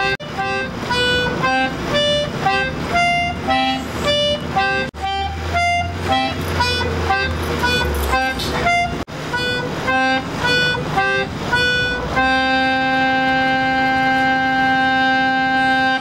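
Concertina playing a melody of short, detached reedy notes, with a low note sounding underneath for about three seconds midway. About twelve seconds in it settles on one long held note.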